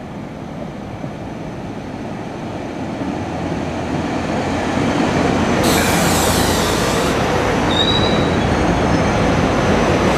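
SEPTA Silverliner IV electric multiple-unit train pulling into the station alongside the platform, the rumble of its wheels growing louder as the cars come level and pass. About six seconds in there is a burst of high hissing, and near eight seconds a brief high wheel squeal.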